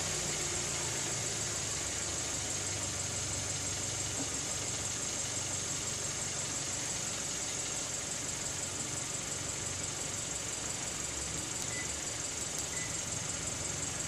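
Kia K7 (Cadenza) engine idling steadily after being remote-started by its aftermarket alarm to charge the battery.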